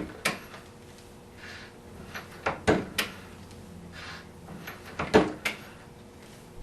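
Metal clicks and clunks of a reloading press and its seating-and-crimping die being worked by hand: a knock at the start, a quick cluster of three about two and a half seconds in, and two more about five seconds in, with quiet between.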